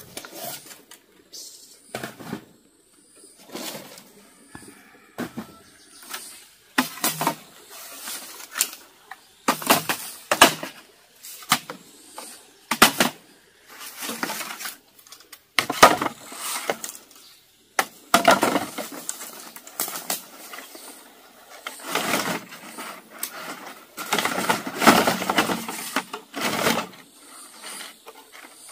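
An irregular series of sharp cracks and knocks, about one a second, some coming in quick clusters, with quiet gaps between them.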